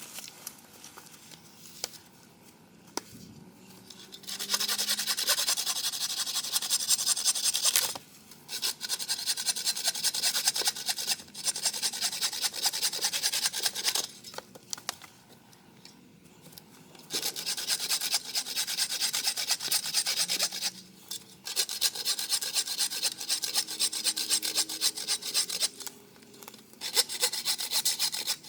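Hand saw cutting through wood in several runs of rapid strokes, with short pauses between runs.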